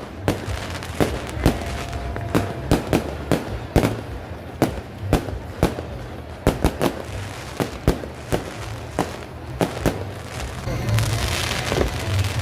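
Fireworks going off in a rapid, irregular string of sharp bangs, two or three a second, over a low rumble. Near the end they give way to a denser crackle.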